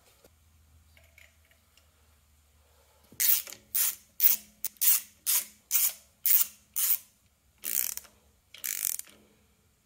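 Socket ratchet wrench on a long extension tightening the engine's water pump bolts: about ten rapid ratcheting strokes, roughly two a second, starting about three seconds in, the last two longer and slower.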